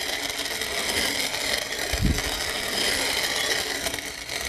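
Hand-cranked cast-iron coffee grinder grinding coffee beans into powder: steady grinding as the crank turns, with a brief low thump about two seconds in.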